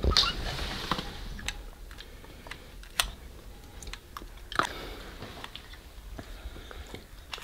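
Scattered soft clicks and taps from a small plastic toy being handled in a child's hands, the sharpest about three seconds in and another about four and a half seconds in.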